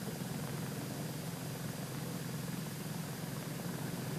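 A steady low drone under an even hiss, with no change in level.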